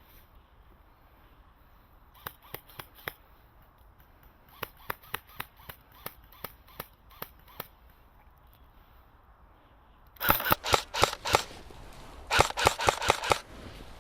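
Airsoft guns firing: scattered single shots, then two much louder rapid bursts near the end.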